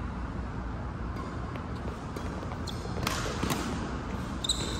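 Badminton rally: a few sharp racket hits on the shuttlecock in quick succession past the middle, and a short high sneaker squeak on the court floor near the end, over the steady low hum of the hall.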